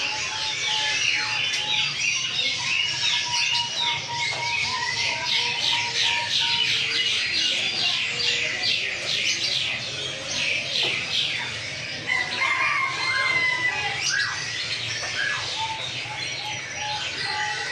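Caged birds chirping and trilling nonstop, with fast runs of rapidly repeated high chirps and a steady thin whistled note beneath.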